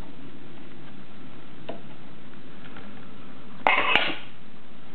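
Steady rain falling during a thunderstorm, with a few faint ticks and a short clattering burst about three and a half seconds in.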